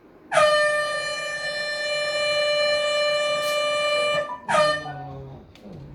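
Air horn blasting: one long, loud, steady blast of about four seconds, then a second short blast half a second later.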